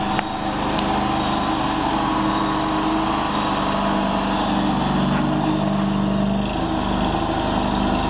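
Mini stand-on skid steer loader's small engine running steadily under load as the machine spins round in a full circle; the engine note shifts slightly about five seconds in.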